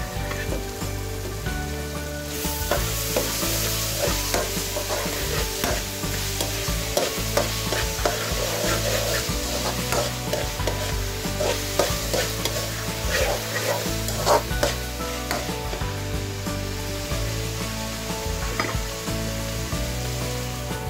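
Chopped onions and ginger-garlic paste sizzling in oil in a nonstick wok, the hiss rising about two seconds in. They are stirred, with many short scrapes and knocks of the utensil against the pan.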